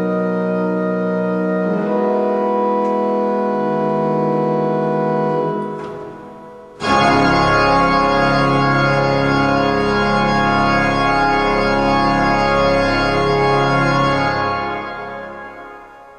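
Fritts pipe organ playing sustained chords: a held chord fades away about five seconds in, then a loud full chord with deep pedal bass enters about seven seconds in, is held, and dies away in reverberation near the end. This is the closing chord of the chaconne.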